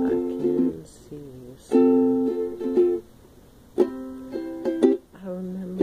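Ukulele strummed by hand, playing chords: each strum rings out for about a second, with a new chord roughly every two seconds and quicker strums near the end.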